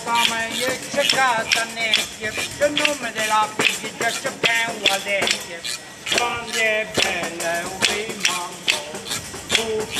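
A man singing an Italian song while beating a large hand-held tambourine, its jingles rattling on each stroke in a quick, steady beat.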